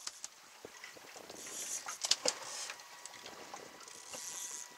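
Fishing reels whirring in two stretches of about a second each as line runs out and is wound in. A few sharp knocks of gear against the boat come about two seconds in.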